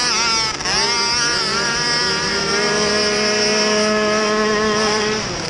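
Youth racing quad's small engine at full race throttle, heard close from the onboard camera: its pitch climbs over the first second or two, then holds a steady high note along the straight and breaks off just before the end as the throttle comes off.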